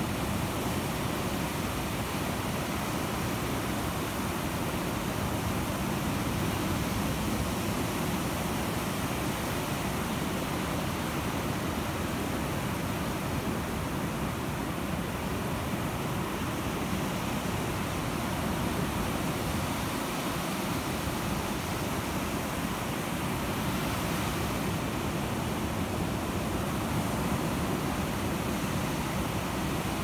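Ocean surf on a sandy beach: waves breaking and washing up the shore in a steady rush of noise that swells and eases only slightly.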